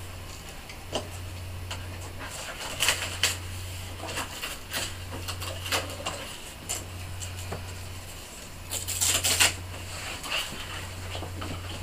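Card stock being peeled off a sticky cutting mat: scattered light clicks and rustles, with a louder crackling rustle about nine seconds in, over a steady low hum.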